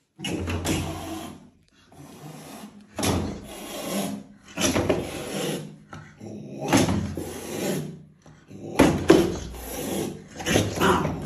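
Angry cat hissing and struggling inside a plastic pet carrier while a thick protective glove grips it. There are about six harsh, rasping bursts, with scraping and rubbing against the plastic.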